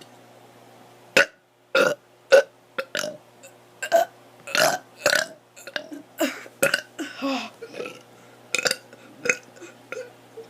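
A child burping over and over: a quick run of short burps starting about a second in, with a few longer, drawn-out ones among them.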